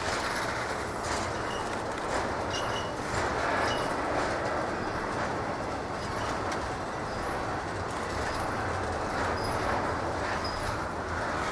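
Norfolk Southern freight train rolling past with a steady rumble of cars on the rails, and a few brief high wheel squeals in the first few seconds.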